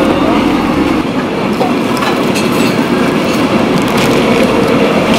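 A wide pot of water at a hard rolling boil over its burner, a steady rumbling bubble, with faint light rattles as bundles of thin dried wheat noodles (somyeon) are shaken into it from the bag.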